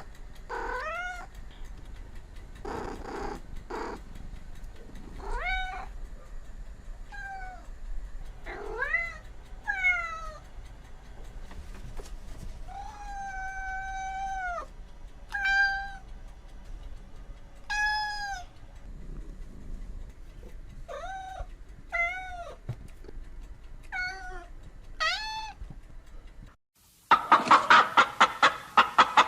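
A domestic cat meowing over and over, about a dozen separate meows that bend up and down in pitch, one of them long and drawn out midway. Near the end it gives way to chickens clucking, louder and in quick succession.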